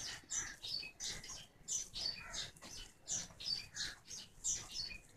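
Fingertips rubbing a gritty sugar, coffee and honey face scrub over the skin in quick back-and-forth strokes: a faint scratchy rustle, about four strokes a second.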